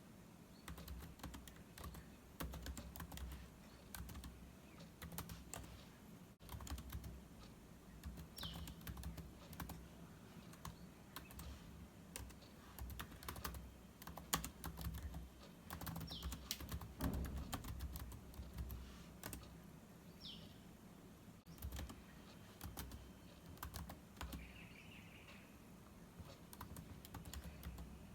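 Computer keyboard typing: irregular runs of key clicks with short pauses between them. A bird gives a few short falling chirps, about three in all, spread through the typing.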